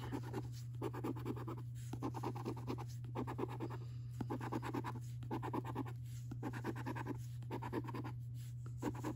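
A coin scratching the scratch-off coating from a paper lottery scratchcard in short bursts of rapid strokes, about one burst a second with brief pauses between, over a low steady hum.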